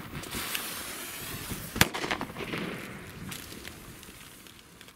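Funke B-class firecrackers going off: one sharp, loud bang about two seconds in, with several smaller pops scattered around it over a hiss that fades away.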